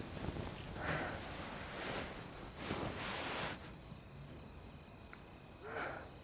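Film sound effects in an outdoor ambience: several separate rustling, breathy swells, the longest about a second, over a faint steady high tone.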